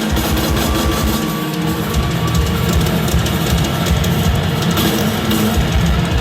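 Live rock band playing an instrumental passage: loud electric guitars over a driving drum kit, heard through a concert PA.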